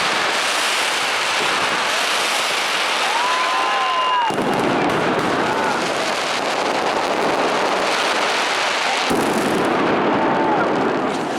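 Dense, continuous fireworks crackle and bangs at Fallas, steady and loud, shifting abruptly in character about four and nine seconds in.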